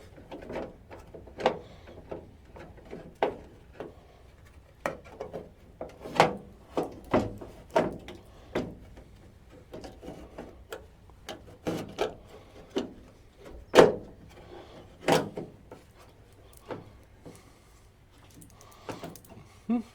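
Irregular clicks, knocks and scrapes of hand work on a 1963 Chevrolet C10 door latch as it is fitted inside the door: metal parts and tools tapping and rubbing against the door shell.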